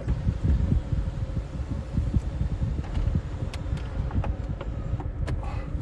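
Car cabin noise as the car moves slowly and comes to a stop: a low, uneven rumble of engine and tyres, with a faint steady hum and a few light clicks.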